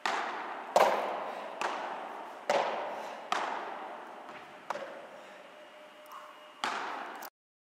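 Padel ball struck back and forth with solid padel rackets in a rally, about seven sharp hits roughly a second apart, each echoing in a large indoor hall. The sound cuts off suddenly near the end.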